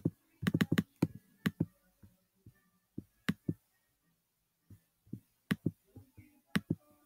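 Computer mouse clicking: a dozen or so separate sharp clicks, irregularly spaced, some in quick pairs.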